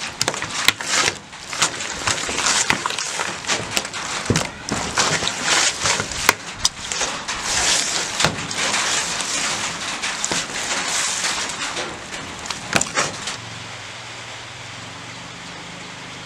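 Raw pork pieces being tossed and mixed with chili paste in a plastic basin: irregular wet squelching with sharp knocks and clicks. About three seconds from the end this stops and steady, quieter background noise takes over.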